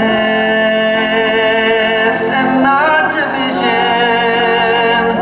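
A song: singing voices holding long notes over instrumental backing, with a slide between notes about two and a half seconds in.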